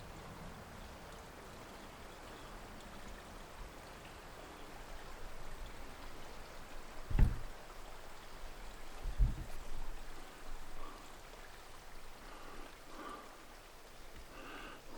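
Faint steady rushing noise, with two low thumps about seven and nine seconds in.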